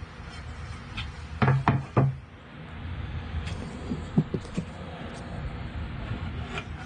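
Wooden poplar board knocking three times in quick succession against a wooden workbench as it is laid down, then a few lighter taps a couple of seconds later, over a steady low hum.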